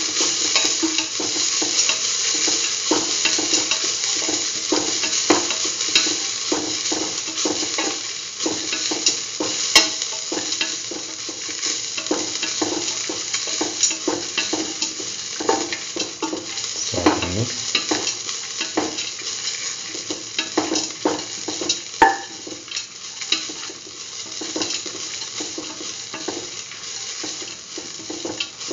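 Grated coconut, chickpeas and dried red chillies sizzling in oil in a steel pan while being stirred, with frequent short scraping clicks over a steady sizzle. The sizzle eases a little after about eight seconds.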